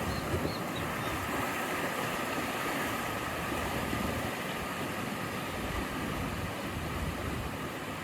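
Ocean waves washing steadily against the shore, a continuous even rush of surf.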